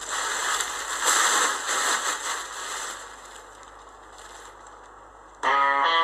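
Plastic tarpaulin rustling and crackling as it is pulled and handled, loudest in the first three seconds and then fading. About five and a half seconds in, music with strummed electric guitar starts abruptly.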